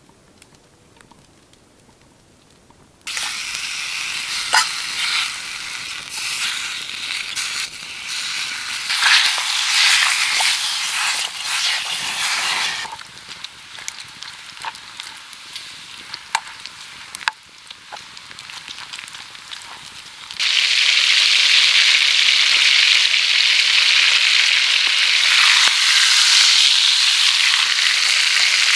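Bacon frying in a skillet over campfire coals, a loud sizzle with scattered pops that starts suddenly about three seconds in and softens after about thirteen seconds. About twenty seconds in, a T-bone steak searing in the bacon grease sets up a louder, steady sizzle.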